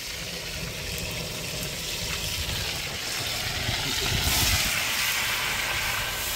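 Fish sizzling as it fries in a pan of very hot oil, the hiss swelling about four seconds in. Wind rumbles on the microphone underneath.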